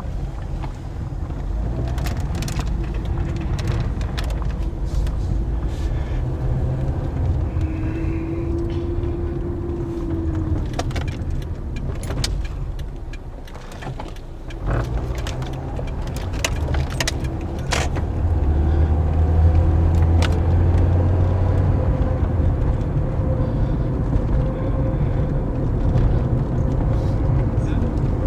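2009 Toyota Corolla on the move: a steady low engine and road rumble that grows louder about two-thirds of the way through, with scattered short knocks and clicks. The owner blames his car's clunking on worn outer tie rods.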